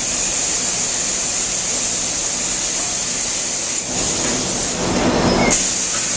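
High-pressure abrasive blasting chamber running, a loud steady hiss over the low hum of factory machinery; the blast roughens the pans' surface before non-stick coating. The hiss drops away for a moment about four seconds in and comes back.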